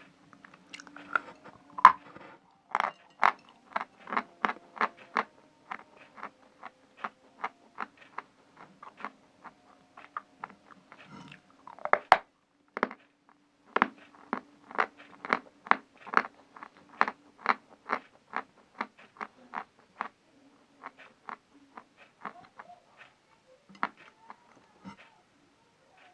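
A dry piece of Khrapovsky natural chalk being bitten and chewed close to the microphone: a long run of sharp crunches, about two a second, thinning out near the end.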